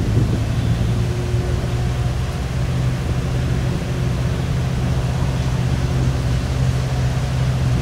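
A steady low mechanical hum at a constant pitch, with no changes in speed or load.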